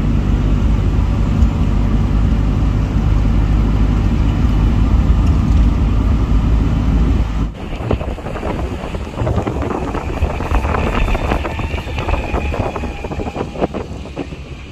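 Suzuki Carry minivan on the move: a loud, steady low rumble of engine and road noise with wind. About halfway through it cuts suddenly to a quieter outdoor sound with scattered clicks and knocks.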